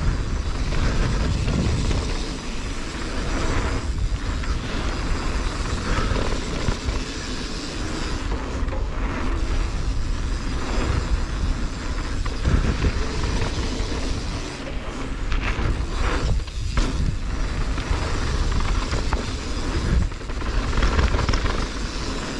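Mountain bike rolling fast down a dirt flow trail: tyre and trail rumble mixed with wind buffeting the microphone, a steady loud noise with no clear tones and a few short dips.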